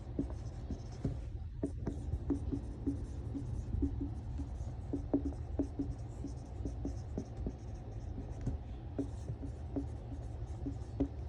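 Handwriting: a pen or marker making quick, irregular scratching strokes and small taps on a writing surface, over a low steady hum.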